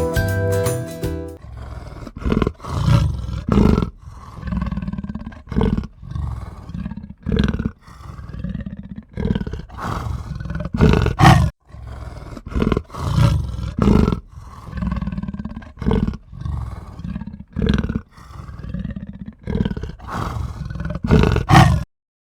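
A short jingle ends about a second in. It is followed by a long series of deep, rough bison bellows and grunts, one call every second or so.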